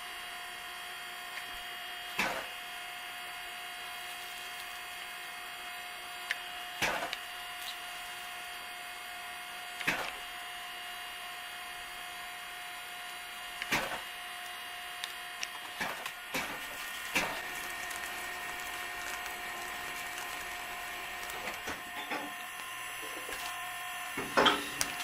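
Small electric motor whirring steadily, with sharp knocks every few seconds.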